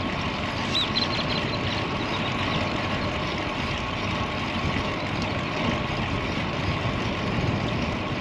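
Steady wind rushing over the microphone while cycling into a strong headwind, with a few faint high chirps about a second in.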